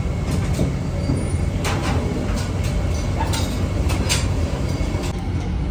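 Busy restaurant din: a steady low rumble with a few scattered clinks of dishes and cutlery.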